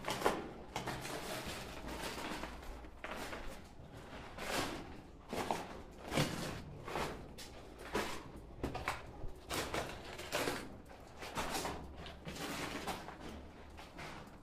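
Footsteps wading through ankle-deep water, a regular sloshing stride of about one step a second.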